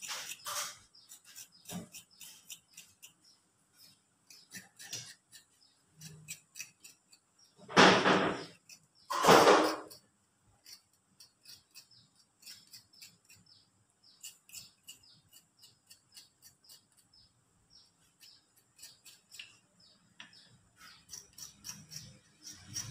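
Small kitchen knife peeling fresh turmeric and other roots by hand: a steady run of small, sharp scraping cuts, with two louder sounds, each about half a second long, near the middle.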